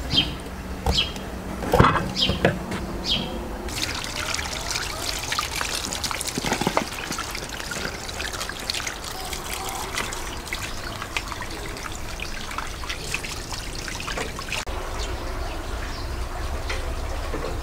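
Water trickling and splashing steadily, with a few short high chirps in the first few seconds.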